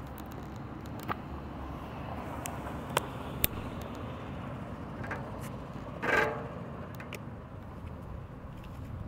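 Mountain bike rolling slowly over paving stones: a steady low rumble with scattered sharp clicks, and a brief, louder pitched sound about six seconds in.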